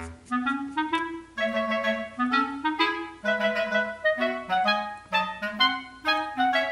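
Background music: a bouncy woodwind tune of short, detached notes over a moving bass line.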